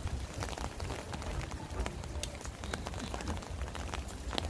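Rain falling, with many short, sharp drop ticks scattered through a steady hiss over a low rumble.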